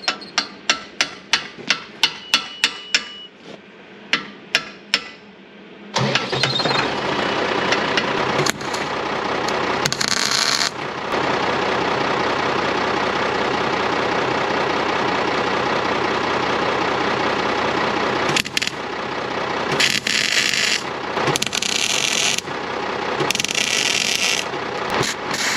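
Sharp ringing metal strikes, about three a second, then a steady power-tool motor that starts about six seconds in and keeps running, turning harsher and higher in several spells of a few seconds each.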